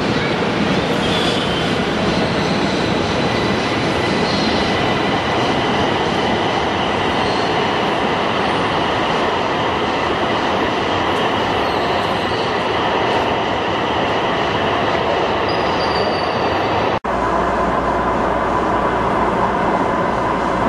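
Light rail train leaving an underground station: a steady rush of running noise with thin high whining tones over it. About seventeen seconds in, the sound cuts to a lower, steadier rumble from a train running through the tunnel.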